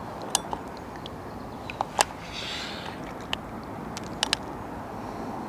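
Several sharp clicks and taps from handling float-fishing tackle at the waterside, with a brief hiss about halfway through, over a steady outdoor background.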